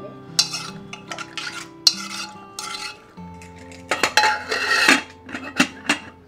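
Stainless steel pressure cooker lid being fitted into the pot: metal scraping and clattering as the lid is worked in and turned, ending with two sharp clicks as the handles are brought together.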